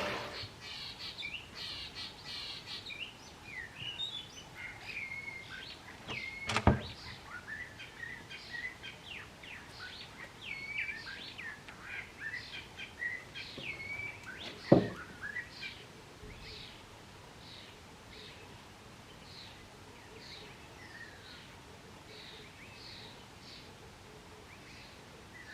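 Birds chirping, a steady stream of short, quick calls that thins out after about sixteen seconds. Two sharp clicks, one about seven seconds in and one about fifteen seconds in.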